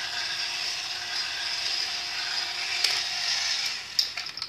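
Toy robot's small electric motor and gearbox whirring steadily as it walks, running quietly with a newly fitted replacement inner gear. A sharp click near the end.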